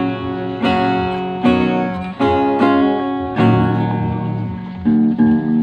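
Acoustic guitar strummed through a slow chord progression. Each chord is struck sharply and rings on, with a new strum about every half second to second.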